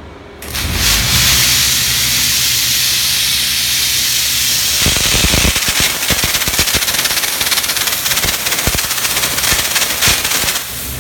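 Steam jet of an LPG-fired steam washing machine blasting with a loud hiss that starts about half a second in; from about halfway the hiss turns spattery and crackling, over a low machine hum. It eases off just before the end.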